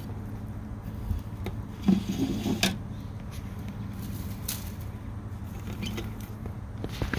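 Handling noise: scattered light knocks and scrapes, busiest about two seconds in, over a steady low hum.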